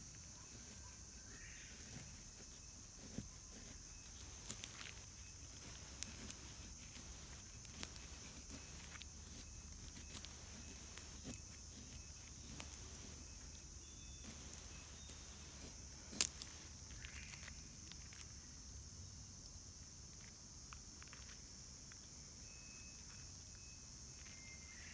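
Faint, steady high insect chirring, with scattered small clicks and crackles and one louder sharp snap about two-thirds of the way through.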